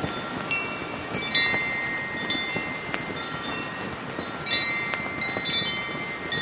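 Brass wind chimes struck by the wind, ringing in irregular clusters of clear, sustained tones, loudest about a second in and again after four and a half seconds, over a steady rush of heavy wind.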